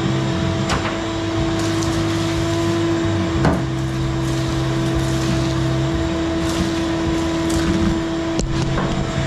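Shop vacuum running with a steady motor hum as its hose sucks leaves and debris out of the floor of an aluminum jon boat. A few sharp knocks come through, about a second in, around the middle and near the end.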